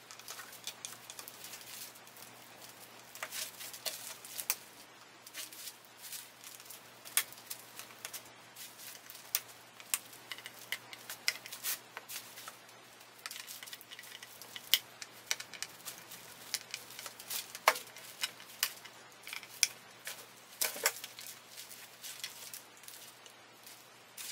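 Wire cutters snipping the small metal nubs off the mounting tabs of synthesizer slider controls on a circuit board: a series of sharp, irregularly spaced clicks amid the light handling of tools and board.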